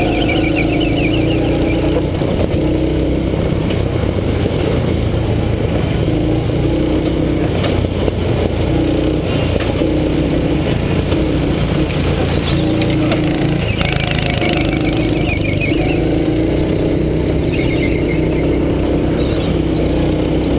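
Go-kart engine running, heard from on board, its note rising and easing every second or two as the throttle goes on and off through the corners. A few brief high squeals come through now and then, once near the start, once about two thirds in and once near the end.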